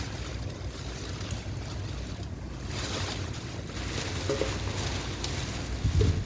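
Steady rushing noise of wind and rain buffeting the microphone, over a constant low rumble, with a brief louder low thump near the end.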